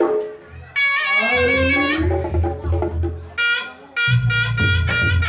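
Reog Ponorogo gamelan music: a slompret (reed trumpet) holds and bends loud, nasal notes over kendang drumming, then plays quick repeated short notes toward the end.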